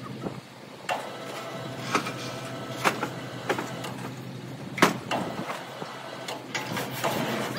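Irregular knocks and clanks about once a second, several with a short metallic ring after them, over a steady low hum: metal roof tile sheets being handled.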